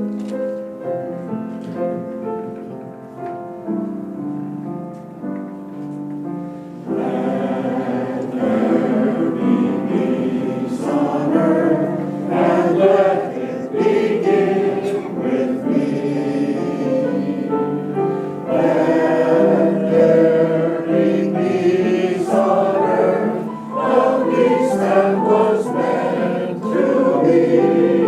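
Piano introduction with held chords, then a choir comes in singing with the piano about seven seconds in, noticeably louder and fuller.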